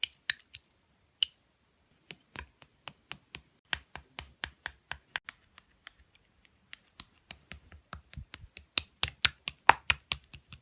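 An irregular run of sharp, separate clicks, a few a second, in the manner of keys being typed. The run pauses about a second and a half in and again around six seconds in.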